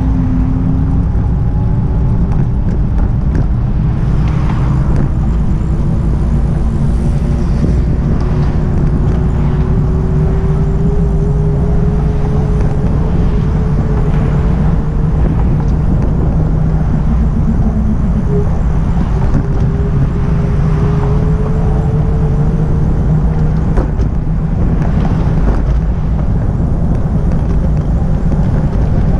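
Loud steady low rumble of road traffic and motion, with a thin whine that climbs slowly in pitch over about twenty seconds and breaks off near the end with a small knock.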